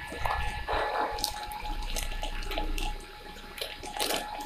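Quiet handling noises: a clear plastic packet rustling and small clicks as a motorcycle wheel bearing is handled by hand for greasing.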